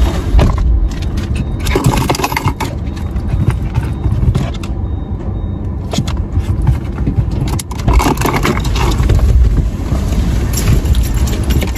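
Car idling with the driver's window down, a steady low rumble, with scraping and rattling as a hand works at the car wash's pay machine outside the window.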